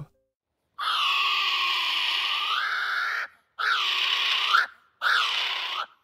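Kiwi calling: a long cry, then two shorter ones, with silent gaps between them.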